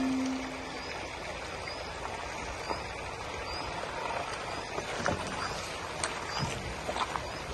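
Shallow stream water rushing over stones, a steady even wash with scattered small ticks and splashes. A faint, short high chirp repeats about once a second.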